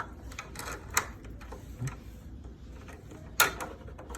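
Skeleton key working an old door lock: a few sharp metallic clicks and clunks of key and lock parts, the loudest cluster about three and a half seconds in.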